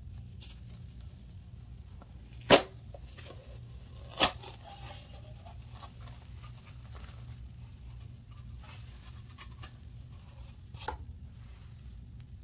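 Comet cleanser powder shaken from its canister onto a wet, foamy paste, with faint soft crackling, then gloved hands pressing into the powder heap. Two sharp knocks about two and a half and four seconds in are the loudest sounds, with a smaller one near the end, over a steady low hum.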